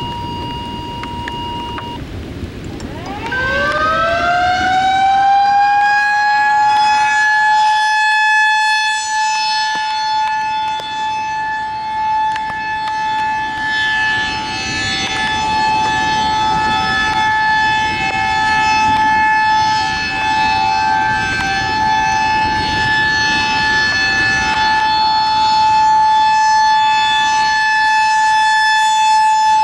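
Federal Signal 2001-SRNB rotating outdoor warning siren winding up about three seconds in, its pitch rising and then holding a steady high-pitched wail, a tornado-warning activation. The sound swells and fades as the horn rotates. A short steady tone sounds in the first two seconds.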